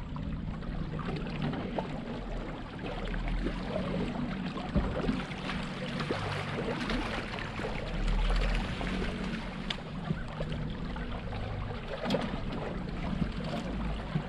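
River water washing and trickling against a small fishing boat, with a faint steady low hum underneath and a few light knocks.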